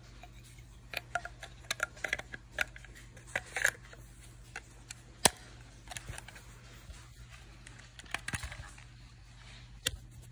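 Handling noise from a Parks Luger toy water gun's cardboard box and small plastic parts being picked up and turned over: scattered light clicks and short rustles, with one sharp click about five seconds in and another near the end.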